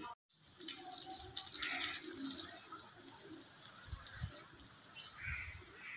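Water running steadily from a hose pipe onto the lawn: a continuous hiss and splash that starts just after a moment of silence, with a few faint low thumps in the second half.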